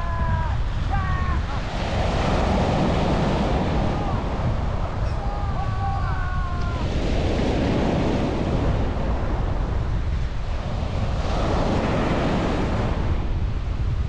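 Surf breaking and washing up a sandy beach, with a wave rushing in about every four to five seconds over a steady low rumble of wind on the microphone. Faint drawn-out calls are heard near the start and again about five seconds in.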